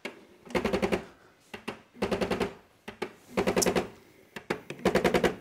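Flashforge AD5X 3D printer's motors giving a rattling buzz in four short bursts, about a second and a half apart, as the machine starts its automatic self-check with a shipping screw still left in the back.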